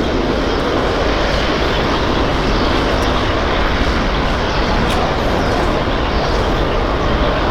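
Jet airliner engines running, a loud steady rush of noise with no clear rise or fall.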